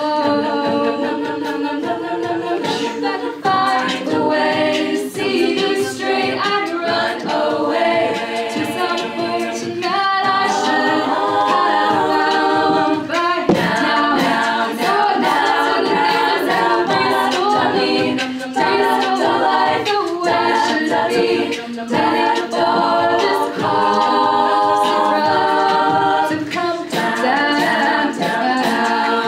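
All-female a cappella group singing in several-part harmony over a steady beat of sharp percussive hits.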